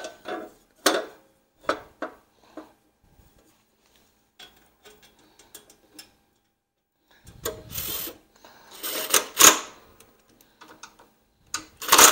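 Belt cover being fitted onto a reel mower: scattered clicks and knocks of the part being handled and fastened, with a rattling stretch about seven seconds in, a louder clatter about nine seconds in and a sharp knock near the end.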